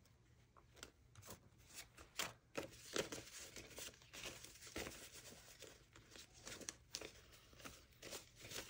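Paper banknotes rustling faintly as a stack of bills is handled and counted by hand, in short irregular flicks and crinkles.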